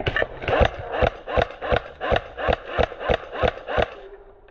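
About a dozen sharp knocks in an even rhythm, roughly three a second, stopping shortly before the end.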